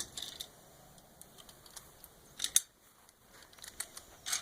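Faint handling noise: a few light clicks and knocks, with a sharper double click about two and a half seconds in.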